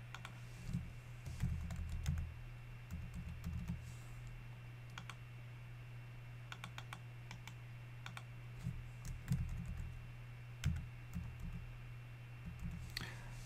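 Computer keyboard typing in short bursts of keystrokes with pauses between, over a faint steady low hum.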